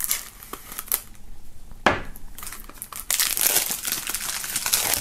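Plastic shrink-wrap on a CD jewel case being slit with a knife and peeled off. A few sharp clicks come in the first two seconds, then dense crinkling of the film from about three seconds in.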